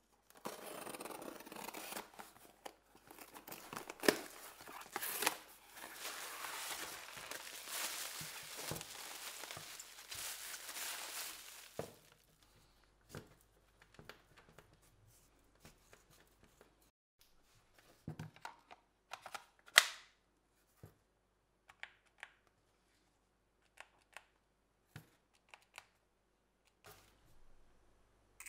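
Handling noise: rustling and scraping with clicks for about twelve seconds, then scattered sharp clicks and knocks, the loudest a crack about twenty seconds in.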